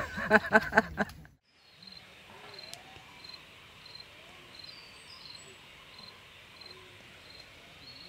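A woman's laughter trails off about a second in. Then comes faint outdoor garden ambience, with an insect's short high chirp repeating about twice a second.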